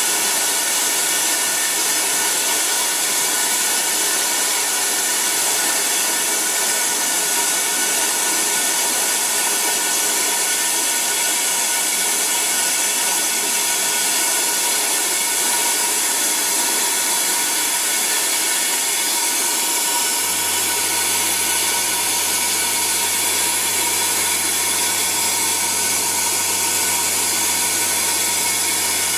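Manual lathe spindle turning at about 1000 RPM while a carbide-insert boring bar cuts inside the bore of a steel ER25 collet chuck, lubricated with WD-40. It is a steady hissing cut with several high ringing tones held over it. A low hum joins about two-thirds of the way through.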